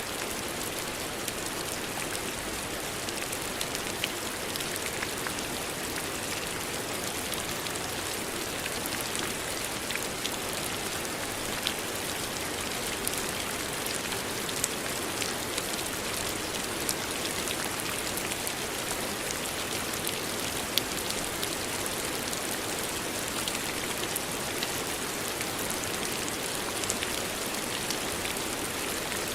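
Steady rain falling, a constant hiss with many small scattered drop ticks on a surface.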